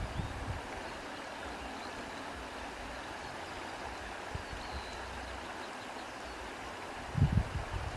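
Sewing machine stitching in short runs: it stops about half a second in, then a steady hiss while the fabric and tape are repositioned, and it runs again briefly about seven seconds in.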